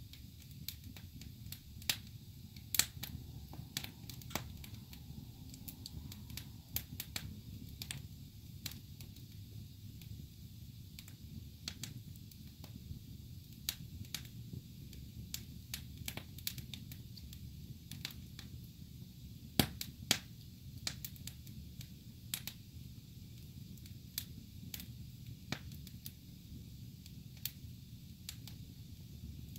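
Wood fire crackling and popping in a fireplace: irregular sharp pops, two louder ones about two-thirds of the way through, over the low steady rumble of the burning logs.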